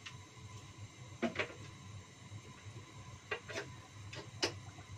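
Covered wok of water boiling vegetable leaves on a gas stove: a steady low rumble, with about five short clicks and taps, two near the start, two past the middle and a louder one near the end.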